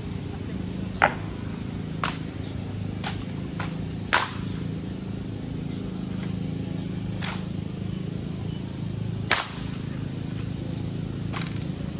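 Honor guard rifle drill: sharp, irregular slaps and clacks of hands striking and catching wooden drill rifles, about eight in all, the loudest a second in, around four seconds in and past the middle, over a low steady background murmur.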